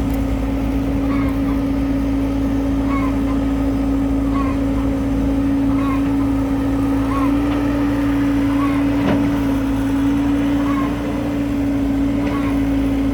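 Excavator engine running steadily with a strong, constant hum and low rumble. A faint short chirp repeats about once a second above it.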